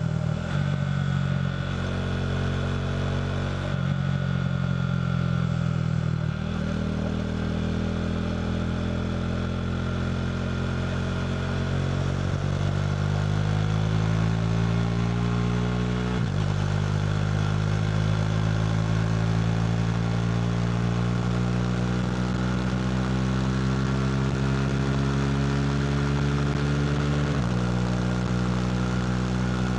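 KTM RC390's single-cylinder engine through a Two Brothers slip-on exhaust, pulling through the gears: the exhaust note climbs steadily in pitch, drops briefly at an upshift about 16 seconds in, climbs again and drops at another shift near the end.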